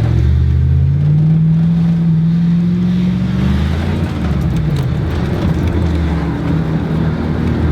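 Truck engine running and revved: its pitch climbs slowly for about three and a half seconds, then drops back and wavers at a lower speed.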